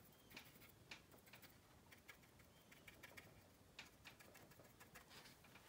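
Near silence with faint, irregular light taps: a stiff weathering brush stippling oil paint onto a plastic model's wing root.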